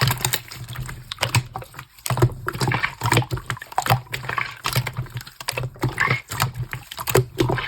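Pink slime squished and pressed by hand, making quick irregular sticky clicks and wet pops.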